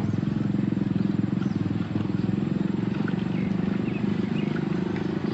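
An engine running steadily: a low, finely pulsing drone, with faint short high chirps above it.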